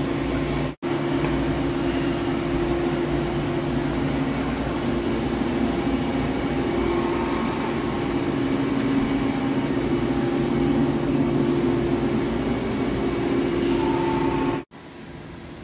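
Heavy-duty Hankook CNC lathe running: a steady mechanical hum with a few held low tones. It breaks off for an instant about a second in, and again near the end, after which it is much quieter.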